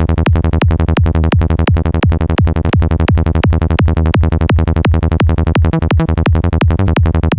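Sylenth1 synthesizer bass patch playing a fast repeating psytrance bass line at 170 BPM, about six short notes a second, heavy in the low end. It starts abruptly at the beginning.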